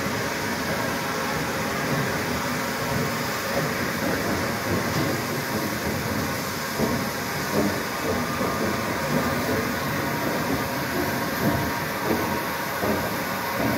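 GWR Castle-class steam locomotive moving slowly through the station, heavy irregular low beats building from about six seconds in over a steady station hum.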